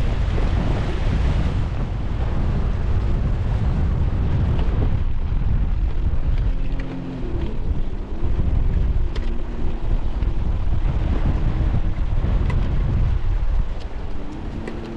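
Strong wind buffeting the microphone, a heavy continuous rumble over the sound of the water. A faint steady hum comes in underneath about halfway through and again near the end.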